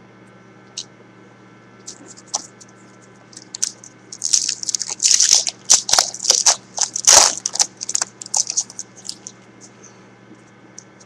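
Foil wrapper of a 2010 Topps Unrivaled football card pack crinkling as it is opened and handled. The crinkles run in a busy stretch from about four to nine seconds in, with a steady low hum underneath.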